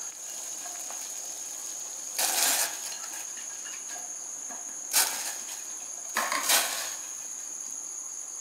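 Crickets trilling steadily on one high pitch. Over them come a few short noises from the steel pressure cooker pot of tapioca in water: a rattle about two seconds in, a sharp clink about five seconds in, and two more rattles just after six seconds.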